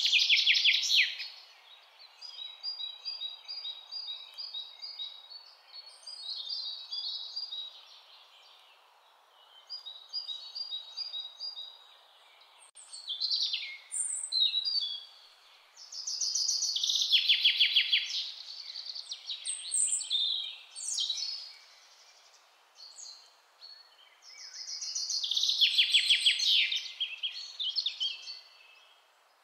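Recorded birdsong used as a soundtrack: birds chirping in short repeated notes, with loud rapid trills at the start, about halfway through and again near the end, over a faint steady outdoor hiss.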